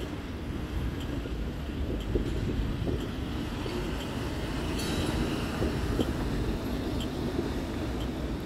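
Articulated city bus engine running as the bus pulls slowly through a turn, over steady street traffic noise, with a brief hiss about five seconds in.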